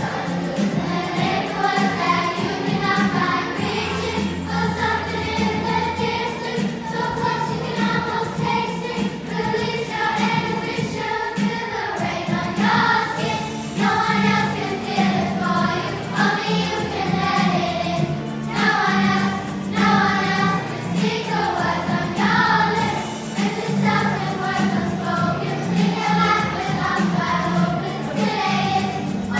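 A group of voices singing a song together over instrumental accompaniment, continuing steadily without a pause.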